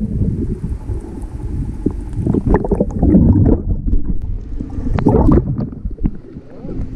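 Muffled water movement on a submerged action camera: a low rumbling wash with irregular sloshing and bubbling crackles.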